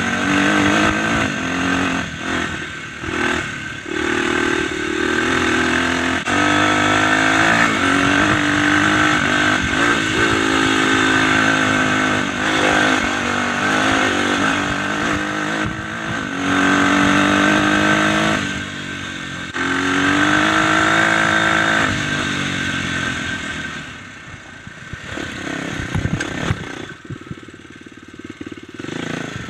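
Dirt bike engine ridden on a trail, the revs repeatedly climbing and dropping back as the rider works the throttle. It falls to a quieter, lower note in the last few seconds.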